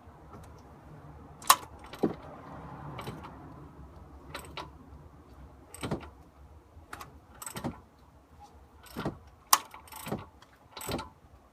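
Scattered sharp metallic clicks and clanks, about a dozen, irregularly spaced, the loudest about one and a half seconds in and again near nine and a half seconds: metal parts being handled.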